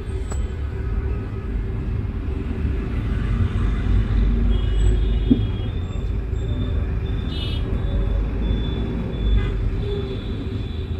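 Low, steady rumble of slow city traffic heard from inside a moving car, with thin high tones sounding faintly above it from about four seconds in.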